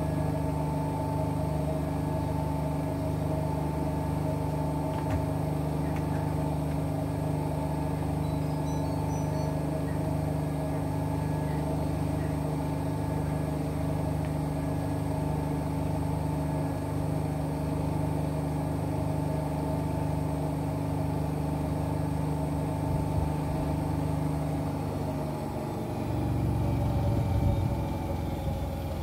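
Front-loading washing machines, an AEG L88840 and a Whirlpool FSCR70420, running their rinse-and-spin cycles: a steady motor hum and whine with a slow, regular pulse in the low hum. About 25 seconds in, the steady whine stops and a louder, rougher rumble rises for a few seconds.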